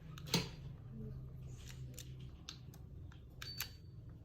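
Sharp plastic clicks and handling noise as a keyboard's cable plug is pushed into a multi-port USB-C hub dongle: one louder click about half a second in, then several lighter ticks, over a low steady hum.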